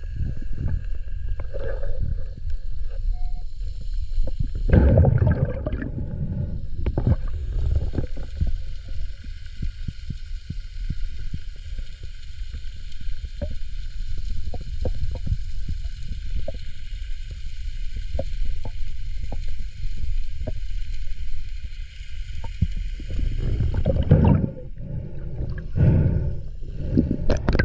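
Underwater sound around a diver: a constant low rumble of moving water with louder churning surges about five seconds in and again near the end, scattered small clicks through the middle, and a faint steady high hum.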